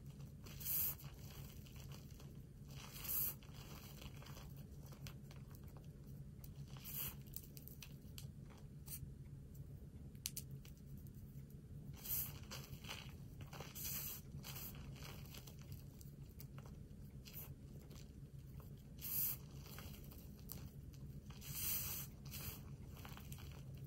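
Hands squeezing and crushing loose powdered gym chalk and cornstarch: about seven short, soft crunches a few seconds apart, with faint rubbing between them. A steady low hum runs underneath.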